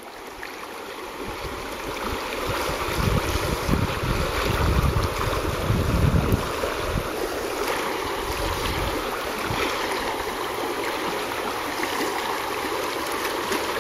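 Stream riffle rushing steadily, with low rumbles of wind buffeting the microphone from about three to nine seconds in.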